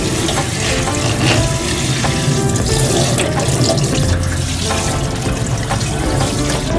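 Tap water running steadily into a stainless steel kitchen sink, rinsing out the basin after it has been scrubbed with cleaning powder. Background music plays over it.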